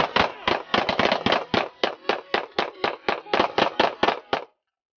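Several pistols firing together in a rapid, uneven string of about two dozen shots, stopping abruptly about four and a half seconds in.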